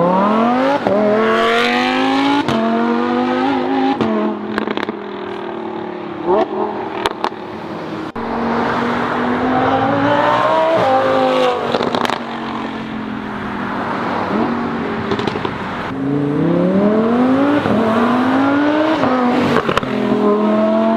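Lamborghini Huracán Performante's 5.2-litre V10, through a Fi valvetronic cat-back exhaust, accelerating hard past in flyby runs. Three times the note climbs steeply, drops at each upshift and climbs again, with a few sharp cracks in between.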